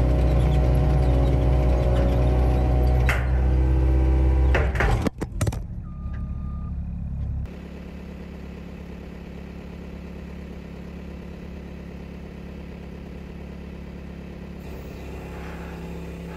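Compact track loader's diesel engine running loud and high for about five seconds, then a few sharp clicks, and from then on a quieter, steady idle.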